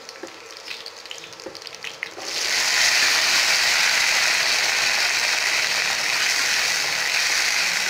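A steel spatula scraping and clicking against a steel kadai. About two seconds in, a loud, steady sizzle starts as crushed, freshly washed turkey berries (sundakkai) go into hot sesame oil.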